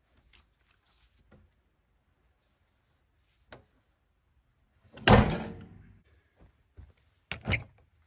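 Heavy clunk with a short ringing tail about five seconds in, as the log is turned with a cant hook on the Wood-Mizer LT15 sawmill's steel bed and its log stops are worked. Lighter knocks and clanks come before it, and two sharper knocks near the end.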